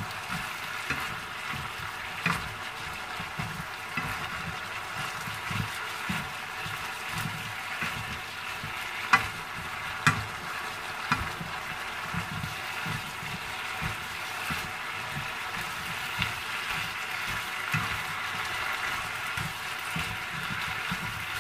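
Cauliflower florets sizzling in a frying pan as a wooden spatula stirs them, with frequent light scrapes and knocks of the spatula against the pan. The sharpest knocks come about nine and ten seconds in.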